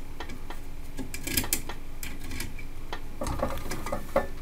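Small metallic clicks and scraping as long-nose pliers work the dial-cord tension spring off a valve radio's dial drum, letting the string's tension off. Two sharper clicks come about a second and a half in, a short scraping rustle a second later, and another click near the end.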